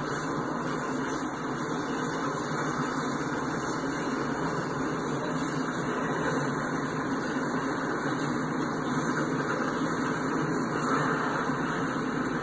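Empty ballast hopper cars of a freight train rolling past: a steady rumble and rail noise without distinct clacks.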